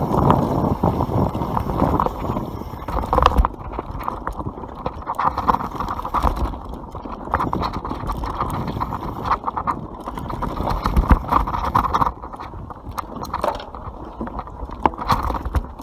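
YT Capra enduro mountain bike rolling fast down a dirt singletrack: tyres rumbling over the trail, with frequent sharp clicks and knocks as the bike rattles over bumps and roots. Wind rushes on the microphone for the first few seconds, then drops away.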